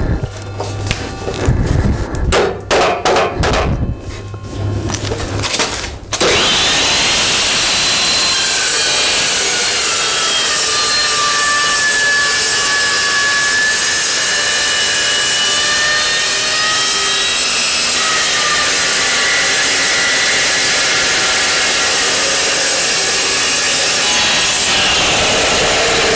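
Metal clanking and knocking as a piece is set in the saw, then about six seconds in an Evolution Rage 2 carbide-tipped chop saw starts and cuts steel steadily for the rest of the time, a loud grinding noise with a wavering high-pitched screech from the blade.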